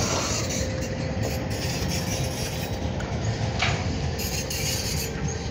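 Freight train of covered grain hopper cars rolling past, a steady low rumble of wheels on rail.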